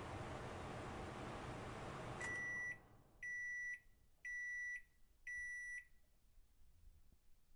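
Microwave oven running with a steady hum that cuts off about two seconds in, followed by four evenly spaced beeps, about one a second, signalling that the cooking cycle has finished.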